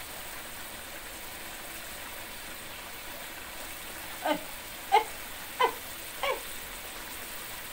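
Sweet-spicy broccoli-tofu sauce simmering in a wok, a steady soft hiss. About four seconds in come four short cries, each falling in pitch, roughly two-thirds of a second apart, from an animal.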